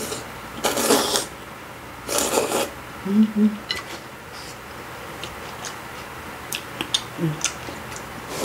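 A person slurping hot noodles from soup, two long sucking slurps, followed by a short low hummed "mm" and scattered light clicks.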